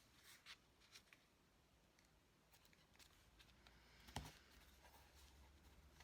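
Near silence with faint rustles and light ticks of paper being handled on a work surface, and one soft knock about four seconds in.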